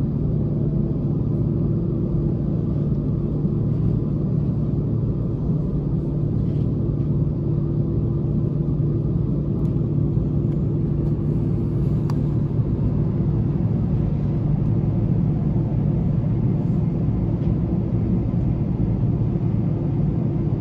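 Steady low drone with a constant hum inside the cabin of an Airbus A321, from the airliner's engines running at idle.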